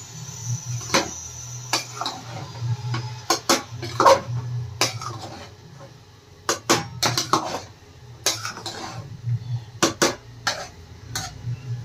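Metal spatula scraping and clinking against the sides of an aluminium pressure cooker as cooked rice pulao is stirred, in irregular knocks and scrapes.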